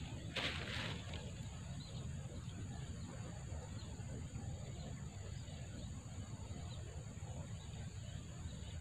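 Outdoor pond-side ambience: a steady high insect drone over a low rumble, with a brief rustle about half a second in.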